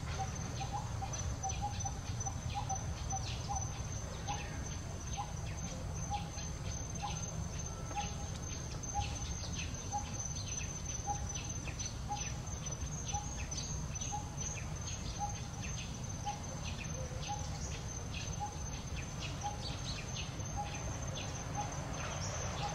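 Outdoor forest ambience. A bird repeats a short low note about once a second over a steady high-pitched insect drone, with scattered quick high chirps and a low background rumble.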